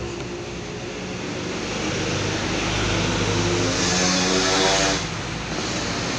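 Small motorcycle passing close by: its engine rises and grows louder, is loudest about four to five seconds in, then falls away suddenly. A steady engine hum runs underneath.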